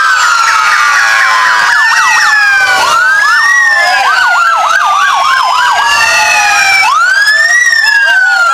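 Several police motorcycle sirens sounding together and overlapping: wails that rise quickly and fall slowly every second or two, with bursts of fast warbling yelp between them.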